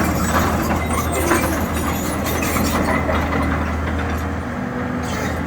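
1996 John Deere 590D excavator's diesel engine running steadily, a constant low hum with mechanical clatter.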